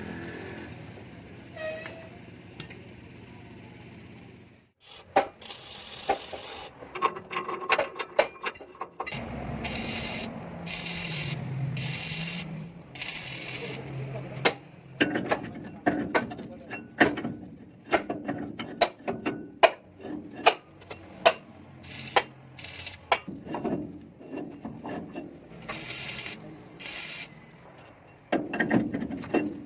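Hand tools working on a truck suspension's tension bar: a long run of irregular metallic clicks and knocks, with a few short bursts of hissing noise.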